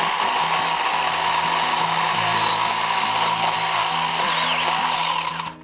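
Tool Life battery-powered mini electric chainsaw running steadily while cutting overhead vines, then cutting off sharply near the end.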